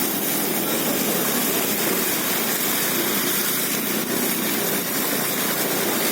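Vehicle driving through floodwater: its engine runs under a steady rush of water churned up around the wheels.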